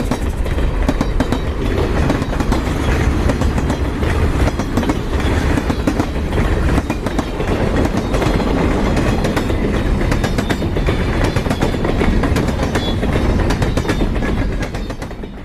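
Train running on rails: a steady heavy rumble with rapid clicking from the wheels over the track, fading away near the end.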